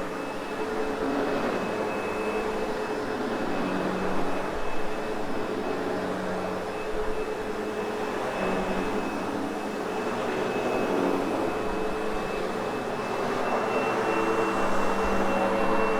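Sebo X8 upright vacuum running steadily over a loop carpet, its motor giving an even rushing noise with a steady high whine, the level swelling a little as it is pushed back and forth.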